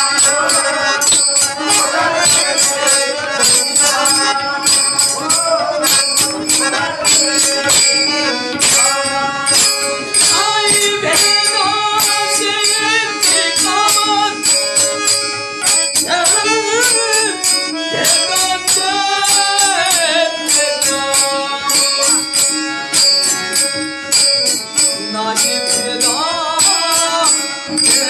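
Marathi devotional folk song: a male voice singing over jingling hand percussion that keeps a steady beat, with a held drone underneath.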